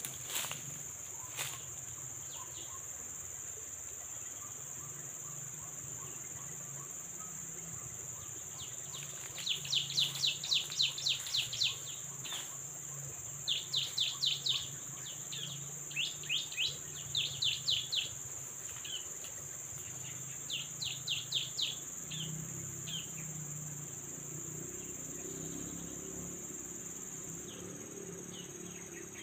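Insects keep up a steady high-pitched drone. Through the middle, a bird gives several runs of rapid, high chirps, each run lasting about a second.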